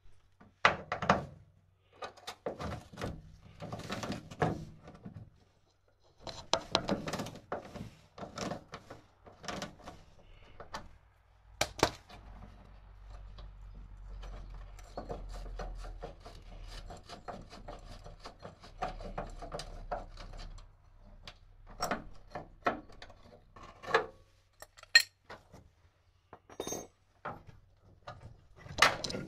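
Hand-tool work on the underside of a Piaggio Ape 50: a metal wrench and parts clink, knock and rub in irregular bursts with short pauses, with a longer stretch of steady rubbing about halfway through.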